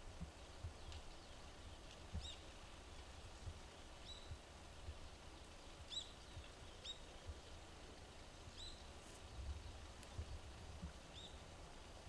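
A small bird chirping: short high calls, about seven of them, one every second or two, over a faint low rumble.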